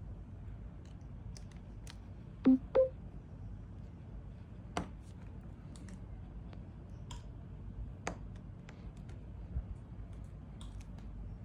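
Sparse small clicks and taps of phone-repair work as flex-cable connectors are pressed onto the board and parts and tools are handled: two louder taps close together a couple of seconds in, then single clicks every few seconds.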